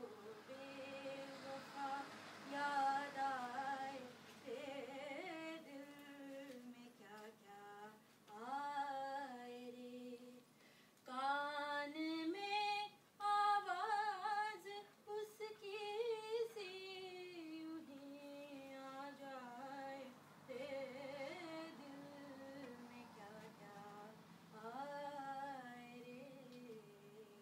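A woman singing solo and unaccompanied: a slow melody in long phrases, with notes that waver and slide between pitches.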